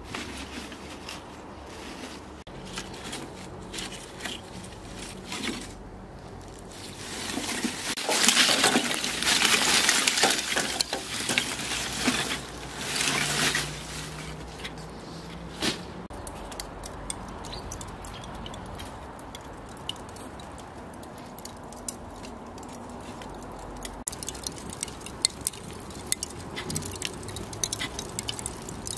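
Lump charcoal poured from a woven sack into a metal mangal grill, the pieces clattering and clinking against each other and the steel box for several seconds. Near the end comes a fast, irregular crackling as paper kindling catches among the coals.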